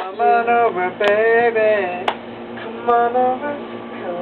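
Pop music with singing voices holding long, sliding notes, and two sharp clicks, about a second apart.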